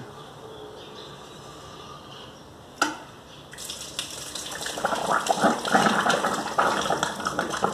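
A sharp click a little before the halfway point, then water starts pouring and splashing, quickly growing louder.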